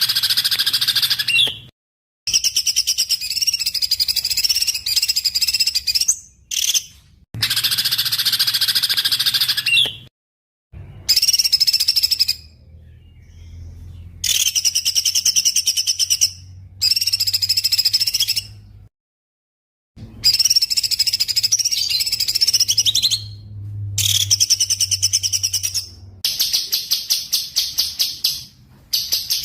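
Small songbird singing in bursts of rapid, high chattering trills, each phrase lasting a couple of seconds and broken off by sudden silences, ending in a fast run of sharp repeated notes; a recording made for tutoring songbirds.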